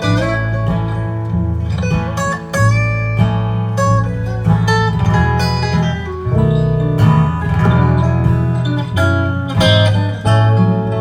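Live country band playing an instrumental break in a slow country-soul ballad: strummed acoustic guitar and bass under a lead guitar line with a few sliding notes.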